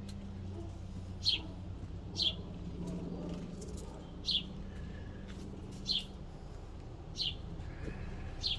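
A small bird chirping repeatedly: six short, high, downward-sliding chirps spaced a second or more apart, over a faint steady low hum.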